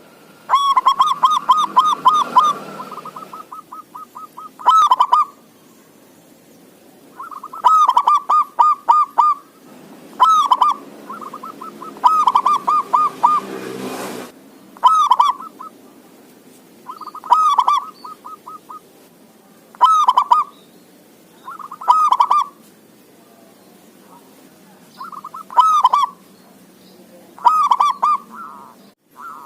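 Male zebra dove (perkutut) singing: phrase after phrase of quick staccato coos, a new phrase about every two seconds.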